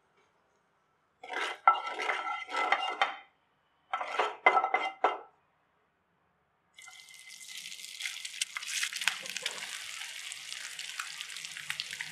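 Two short bursts of a metal utensil scraping and clattering in the pan, then boiled eggs start sizzling and crackling steadily in hot oil from about seven seconds in.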